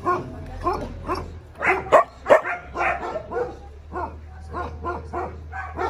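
Puppies barking and yipping, short sharp calls in quick succession at about three a second, with two louder barks about two seconds in.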